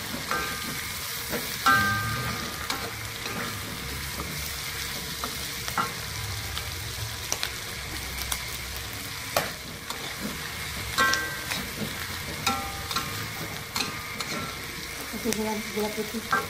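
Small squid, chilies, shallots and garlic sizzling in oil in a steel wok as they are stir-fried, with a metal spatula scraping and knocking against the wok. The knocks come at irregular intervals, each ringing briefly, over a steady frying hiss.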